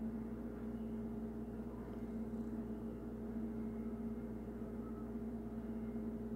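Room tone: a steady low hum with no other distinct sounds.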